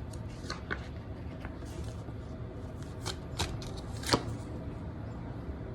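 Tarot cards being handled: scattered light taps and flicks, with a few sharper clicks about three to four seconds in.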